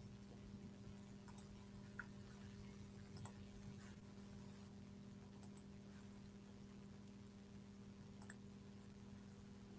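Near silence: a steady low electrical hum, with faint computer mouse clicks, mostly double-clicks, about four times a couple of seconds apart.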